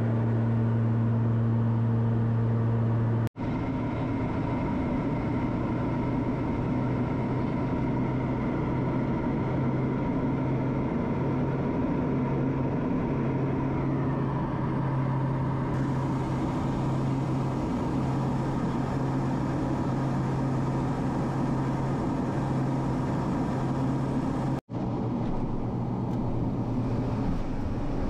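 Small propeller airplane's engine droning steadily, heard from inside the cabin, with two abrupt breaks where the sound cuts out for an instant and resumes.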